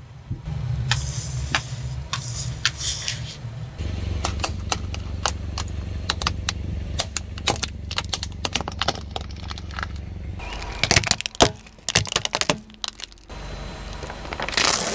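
A car tyre rolling slowly over small objects on asphalt, crushing them with runs of sharp crackles and cracks, over the low hum of the idling car engine. Several separate crushes follow one another with abrupt changes between them, the loudest cluster of cracks about two-thirds of the way through.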